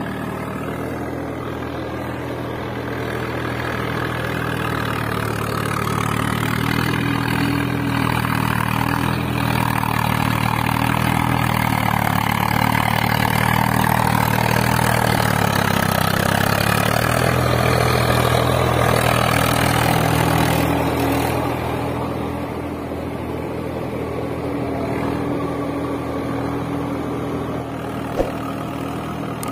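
Engine running steadily, louder for a stretch in the middle and briefly revving before easing back.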